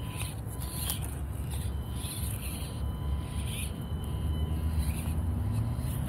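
Axial Deadbolt 1/24-scale RC rock crawler's small electric motor and geartrain whirring as it crawls over rocks, under a low rumble, with short high-pitched chirps coming and going.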